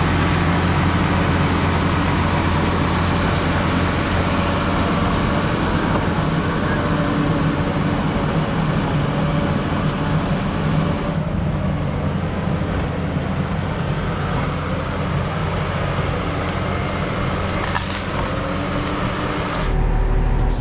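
Case crawler bulldozer's diesel engine running steadily under load as the dozer works the dirt trail. Near the end the sound is heard from inside the cab, deeper and louder.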